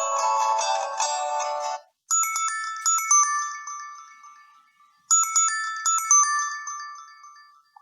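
Preset ringtones playing on a BQ-5007L Iron smartphone. One melody ends about two seconds in, then a short chiming ringtone phrase plays twice, each time fading out.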